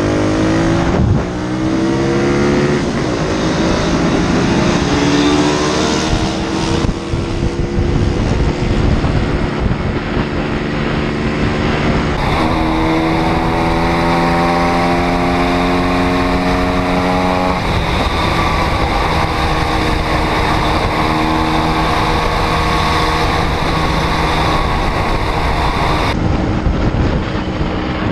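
Pit bike's small single-cylinder four-stroke engine revving up through the gears and then holding a steady speed. The sound changes abruptly about twelve seconds in, where the engine climbs in pitch again before levelling off, and changes abruptly again near the end.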